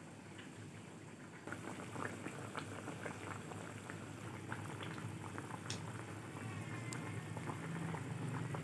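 Chicken simmering in a white karahi gravy in a pan, bubbling with a steady stream of small pops. It gets louder about a second and a half in.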